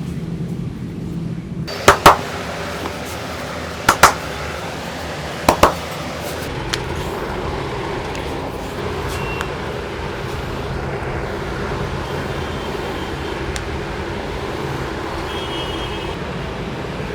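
Three quick pairs of sharp, loud smacks about two seconds apart from a barber's massage, then only a steady hum of street traffic.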